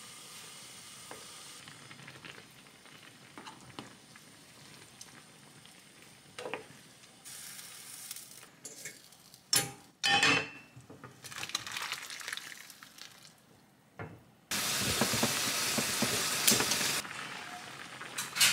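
Tteokbokki in red sauce simmering and sizzling in a pan on a gas stove, stirred with a wooden spoon, with metal pans clanking against the stove about halfway through. Near the end, a few seconds of loud, even sizzling that starts and stops abruptly.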